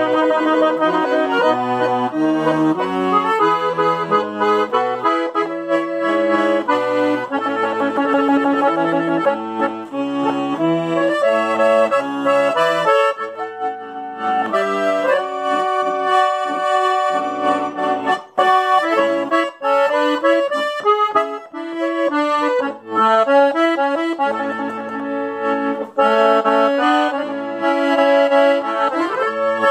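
Piano accordion played solo: a sertanejo raiz (modão) tune, with the melody and chords on the treble keys over a moving bass line.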